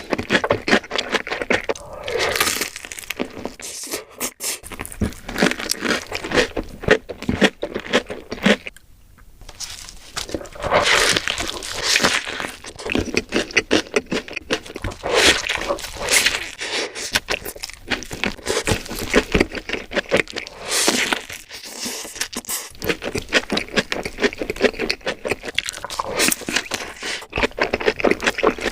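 Close-miked eating sounds: chewing and crunching of burgers and fast food, a dense run of irregular wet clicks and crackles, with a short lull about nine seconds in.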